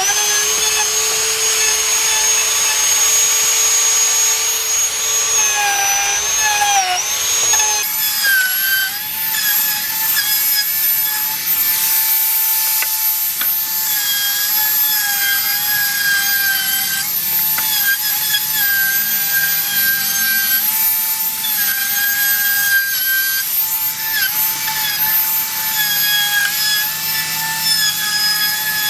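Power tool with a high-pitched motor whine cutting along white oak deck boards to edge them, the pitch dipping briefly under load and recovering several times. The sound changes abruptly about eight seconds in.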